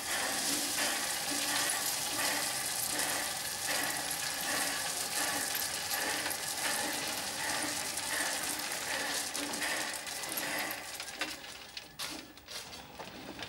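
Ballast stones running out of a hopper wagon onto the track, a steady hissing rattle, with soft regular exhaust beats a little more than once a second from the narrow-gauge steam locomotive working slowly. It fades over the last couple of seconds.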